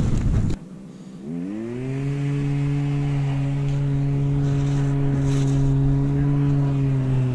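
A motor running at a steady pitch: it starts about a second in, rises briefly and then holds an even hum.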